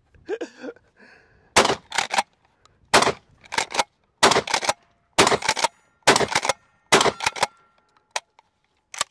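Rock Island All Gen 12 pump-action 12-gauge shotgun firing about six shots in quick succession, with the pump action racked between shots, followed by a couple of lone mechanical clicks near the end.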